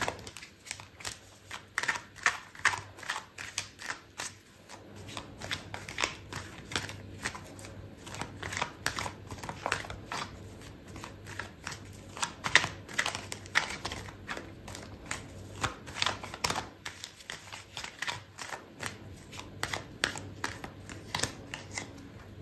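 A deck of oracle cards being shuffled by hand: a long, uneven run of soft card flicks and riffles.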